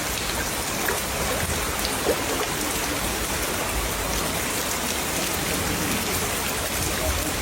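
Heavy rain falling: a steady, even hiss with scattered sharp drop ticks.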